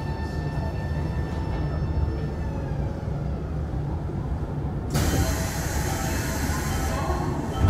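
Nankai 8300 series electric train running, its Hitachi SiC VVVF inverter giving a whine of several steady tones over a low rumble of wheels on rail; the tones glide down and fade about two to three seconds in. About five seconds in, a loud hiss sets in suddenly and carries on.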